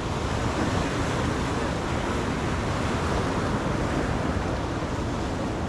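Steady wind on the microphone over the wash of waves, an even rushing noise with no distinct events.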